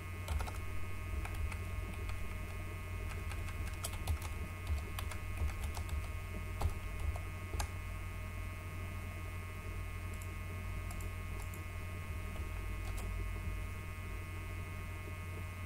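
Computer keyboard typing: scattered key clicks, busiest in the first eight seconds and sparser after, over a steady electrical hum.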